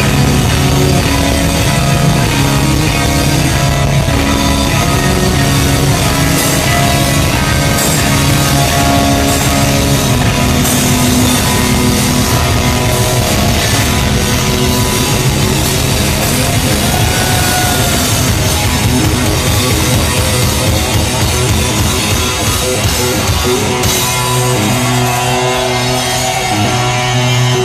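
A rock band playing live at full volume: distorted electric guitars, bass and a drum kit, heard from within the crowd.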